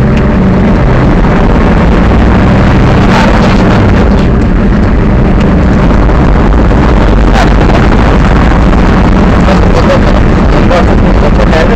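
Monster truck engine running while driving, heard loud and overdriven from inside the cab, with a steady low drone and a few knocks as the truck rolls over the ground.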